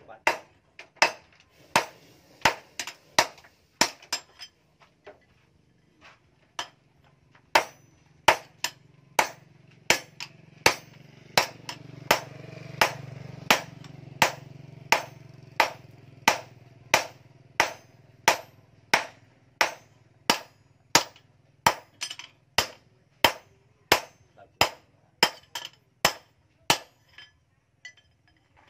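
Hand hammer striking a red-hot steel axe head on an anvil: sharp ringing metal blows at about two a second, with a short break early on and the hammering stopping near the end. A low drone swells and fades under the blows in the middle.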